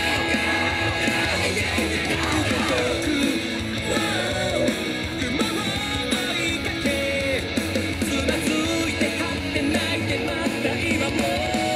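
Loud rock-style song with vocals.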